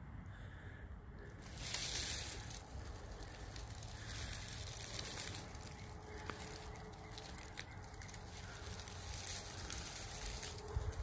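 Dry fallen leaves crunching and rustling in a few irregular bursts, as of footsteps through leaf litter.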